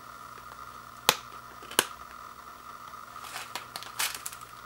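Plastic clicks of discs being popped off the press-button hubs of a black plastic Blu-ray case: two sharp, loud clicks under a second apart about a second in, then a flurry of smaller clicks and rattles near the end.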